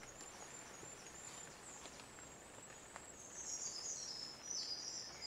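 Faint woodland background noise; from about three seconds in, a small songbird sings a quick run of high notes.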